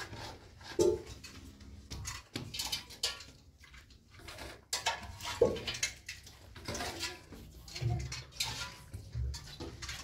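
Irregular knocks and clinks of objects being handled, with a few brief pitched sounds about a second in and again halfway through.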